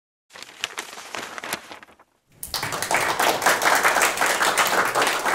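Audience applauding: a few scattered claps at first, then after a short gap about two seconds in, fuller applause from a room of people.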